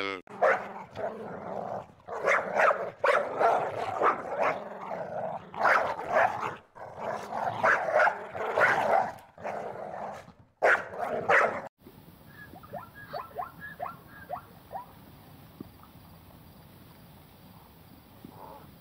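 A dog barking over and over in short, loud barks for about twelve seconds. The barking cuts off suddenly, leaving a much quieter stretch of faint water and outdoor sound.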